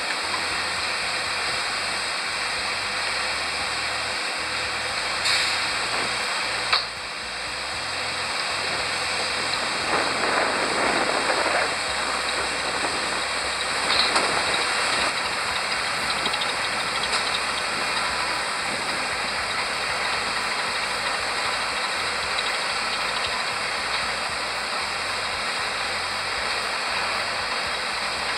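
Steady hissing cabin noise inside a Boeing 737-800 taxiing after landing. A sharp click comes near the seventh second, after which the noise drops slightly, and a brief swell follows a few seconds later.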